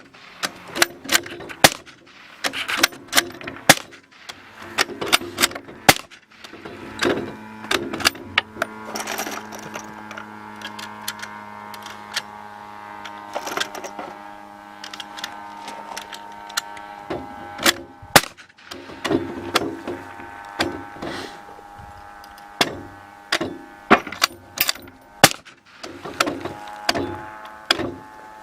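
Repeated suppressed gunshots fired through a TE-Titan suppressor, sharp cracks coming about once a second and sometimes faster. A steady droning tone runs under the shots from about seven seconds in until about seventeen seconds in.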